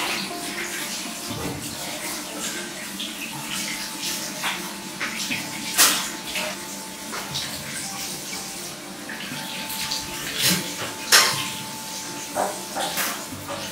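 Tap water running into a stainless-steel kitchen sink while a potato is scrubbed under the stream with a steel-wool scourer, giving irregular scratchy strokes. Two sharper, louder scrapes come about halfway and near the end.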